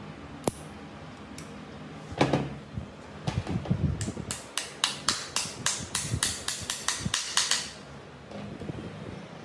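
Hammer tapping rapidly on the shaft end of a metal cutter's gear and bearing assembly: a quick run of light metallic strikes, about four or five a second, after a single knock.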